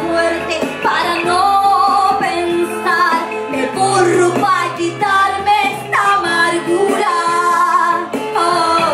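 A woman singing over instrumental backing music, holding long wavering notes.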